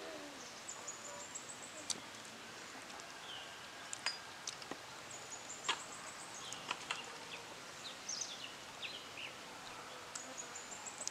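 Faint outdoor background with short, high bird chirps now and then and a few soft ticks.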